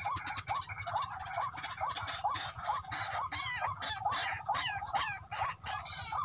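Rail (tikling) calling: a steady run of short, squeaky rising notes, about three a second, with higher sliding calls overlapping through the middle.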